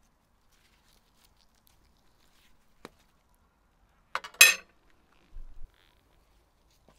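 A knife handled against the grilled fish and plate: a faint click, then one short sharp scrape about four seconds in, then a dull bump.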